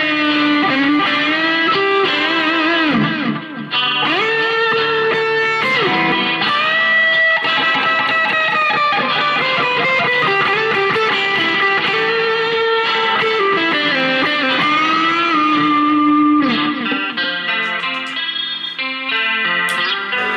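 Chinese-made Telecaster-style electric guitar played through an amplifier, a single guitar line of long held notes with string bends and vibrato. Near the end it turns to shorter, choppier notes.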